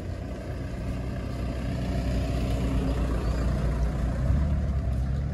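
A motor vehicle's engine running close by. It grows louder to a peak about four seconds in, then eases off, as when a vehicle passes.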